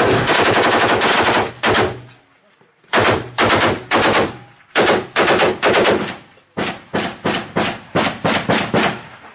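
Kalashnikov assault rifles firing close by: a long rapid burst, a pause of about a second, a few short bursts, then a string of quick single shots at about four a second.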